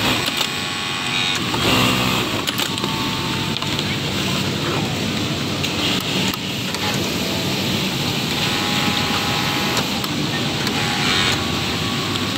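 Industrial single-needle sewing machine running in short bursts as a template is stitched, over a steady mechanical hum of workshop noise.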